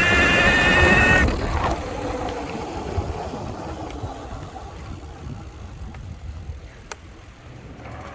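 Bafang M620 mid-drive e-bike motor whining, a high stack of tones rising slightly in pitch, over a low rumble; the whine cuts off about a second in. A fainter, lower hum then falls in pitch and fades as the bike slows.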